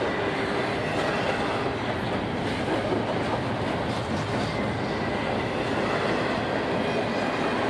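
Loaded doublestack intermodal well cars rolling past: a steady rumble and clatter of steel wheels on the rails.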